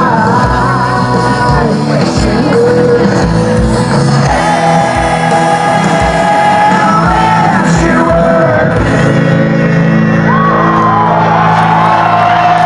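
Live rock band with a male lead singer, heard from within the crowd: long sung notes over electric guitar and a steady kick drum. The drum beat stops about nine seconds in, leaving held chords under the voice.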